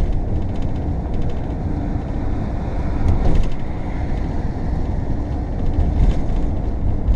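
Steady road and engine noise inside the cab of a moving RV, heaviest in the low rumble.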